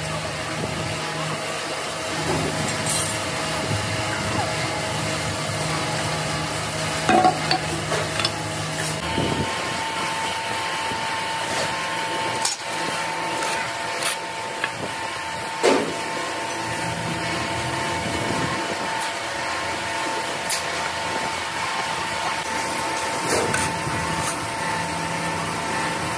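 Workshop machinery running steadily: a low hum under a hiss, joined about a third of the way in by a steady high tone, with a few sharp knocks.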